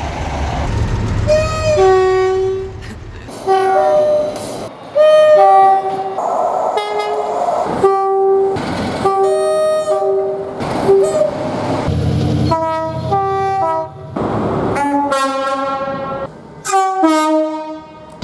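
British train horns sounding a rapid string of short blasts, mostly alternating high and low notes, cut together from one train after another so the pitch and character change abruptly. A low rumble sits under some of the soundings.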